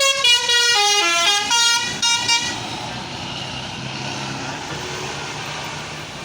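Basuri telolet multi-tone bus horn playing a quick melody of stepping notes, falling then rising, for about two and a half seconds, then cutting off. After it comes steady engine and road noise from the passing bus.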